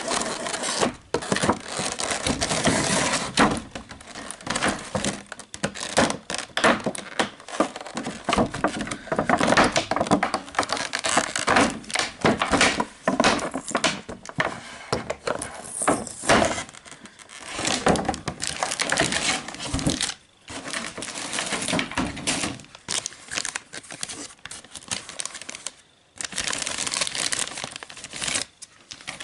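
Packaging of a boxed figure being handled and torn open: continuous crinkling, crackling and tearing of plastic and tape, with a few short pauses.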